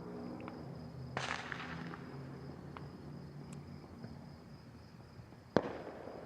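Faint fireworks popping: two sharper bangs, about a second in and near the end, with a few small crackles between. A steady high insect trill runs under them.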